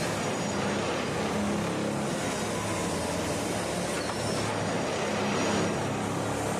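Railway ballast tamping machine running: a steady engine drone with constant broad mechanical noise.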